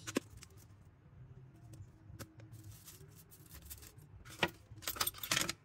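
Scattered small clicks and taps, then a short burst of scraping and clicking near the end, from hand tools working on an iPad.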